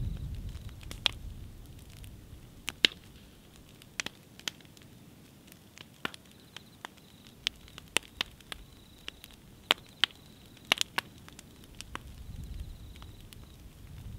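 A burning wooden frame crackling as it collapses to embers: sharp, irregular pops and snaps, a few of them loud. A low rumble fades away in the first couple of seconds and comes back near the end.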